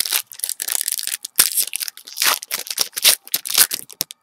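Rapid, irregular crinkling and rustling of foil trading-card pack wrappers and cards being handled.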